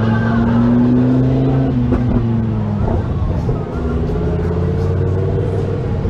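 Lamborghini Huracán's V10 engine running at low revs while creeping along in traffic. The note rises slightly, then drops about two seconds in and again a second later.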